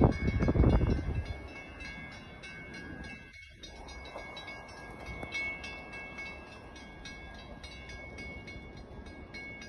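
A loud train sound dies away about a second in. It leaves a low steady rumble with faint steady high tones from an NJ Transit train, led by an ALP-45DP locomotive, that is still out of sight in the distance.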